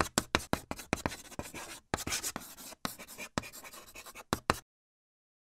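Chalk writing on a chalkboard: a quick run of sharp taps and short scratching strokes that cuts off abruptly about four and a half seconds in.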